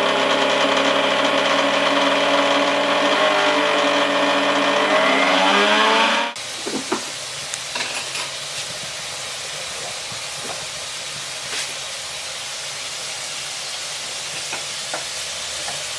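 Electric mixer grinder (mixie) running with its stainless-steel jar, grinding roasted coconut-spice paste with a little added water: a steady motor whine that rises in pitch and then cuts off about six seconds in. After it, shallots and drumstick pieces sizzle more softly in a pan, with small crackles.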